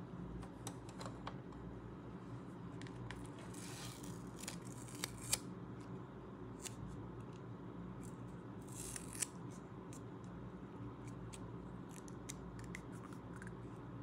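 A paper sticker label being handled and pressed around a miniature plastic toy bottle: many small crisp clicks and ticks, with two short papery rustles about four and nine seconds in, each followed by a sharper click.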